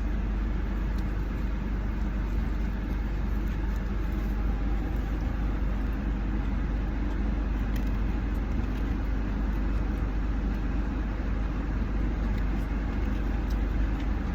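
Steady low rumble and hiss of a vehicle running, with a few faint clicks.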